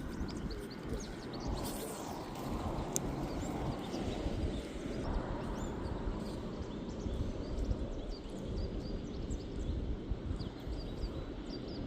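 Outdoor ambience: a steady low rumble and hiss, with scattered faint high chirps or ticks throughout.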